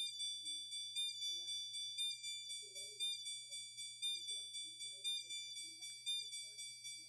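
System Sensor CHSW fire alarm horn strobe sounding a continuous high-pitched electronic horn tone on 24 volts, pulsing about three times a second.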